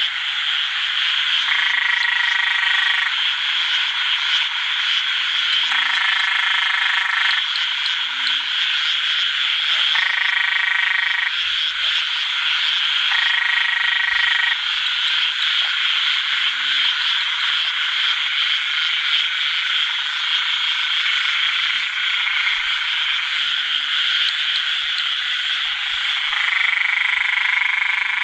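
Dense chorus of male อึ่งแดง frogs calling to attract females after heavy rain: a steady, loud din. Every few seconds a nearer frog's call of about a second and a half stands out above it.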